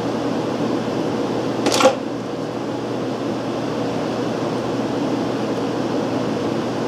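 Steady fan-like whirring in the background, with one short metallic clink a little under two seconds in as small metal parts and tools are handled at the engine's ignition plate.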